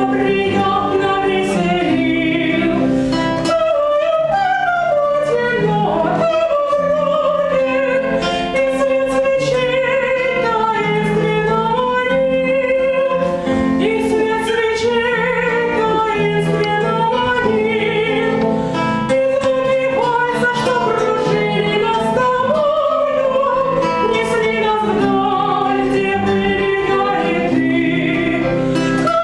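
A woman singing a romance with vibrato, over instrumental accompaniment.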